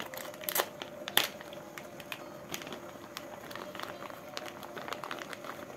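Plastic tteokbokki packet crinkling and crackling as it is torn open and handled. There are a few sharp crackles in the first second or so, then lighter crinkling.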